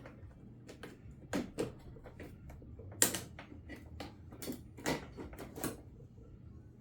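Irregular clicks and knocks from handling the Greenworks 80V Pro mower's handle parts while its cords are fitted down inside. The sharpest knock comes about three seconds in.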